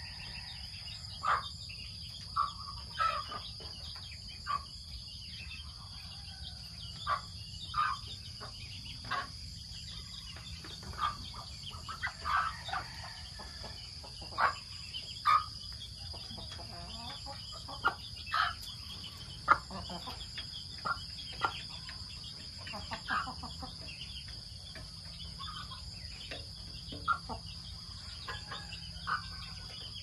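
Chickens clucking: short, sharp calls every second or so, over a steady high-pitched insect drone.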